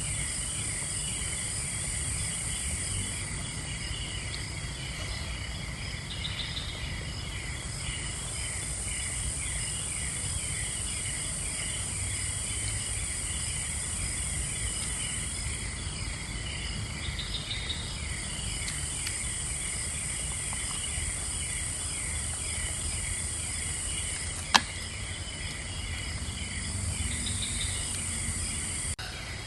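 A forest insect chorus of crickets and other insects: a steady high buzz with a chirp repeating at an even pace. One sharp click sounds near the end.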